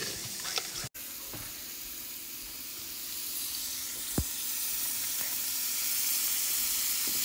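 Steak searing in a hot pan with a pat of butter melting beside it: a steady sizzle that grows gradually louder. A single sharp tap sounds about four seconds in.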